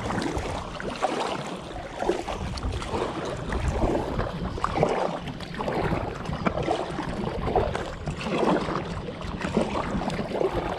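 Double-bladed kayak paddles dipping and pulling through the water, splashing in a steady rhythm about once a second, with wind rumbling on the microphone.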